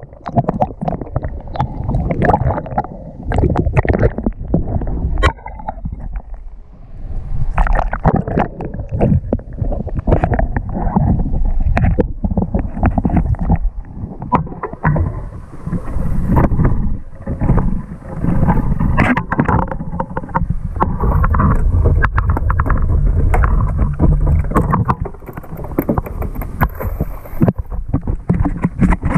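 Water splashing and sloshing around a small fishing boat, with many irregular knocks and thumps and a constant low rumble.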